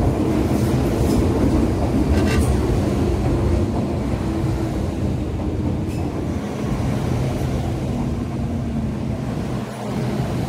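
MTR M-train electric multiple unit running along the platform: a steady rumble of wheels and running gear with a faint motor hum, easing off slightly towards the end. A couple of sharp clicks from the wheels crossing rail joints, the first about two seconds in.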